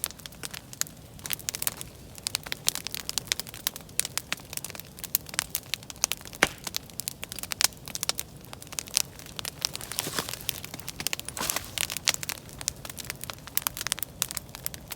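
Large wood campfire burning in a pit, crackling with a dense, irregular run of sharp snaps.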